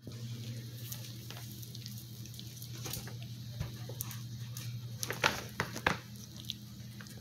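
Four-week-old dachshund puppies scuffling in a plush dog bed: soft rustling and scattered small clicks, with a few sharper knocks about five to six seconds in, over a steady low hum.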